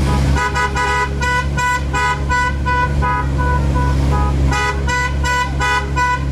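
Telolet multi-tone horn on a mini tourist train tooting a quick tune of short, rapidly repeated notes that step between a few pitches. It eases off briefly in the middle, then comes back louder, over a steady low engine hum.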